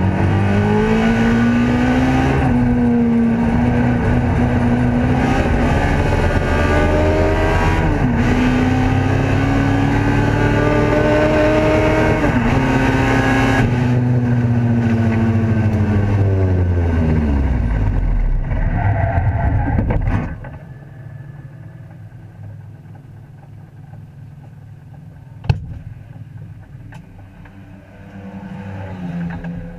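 Ford Escort race car's engine heard from inside the cabin, pulling hard through two or three upshifts, then the revs falling away as the car slows. About twenty seconds in the engine note drops away sharply to a much quieter low running sound, with one sharp knock near the end.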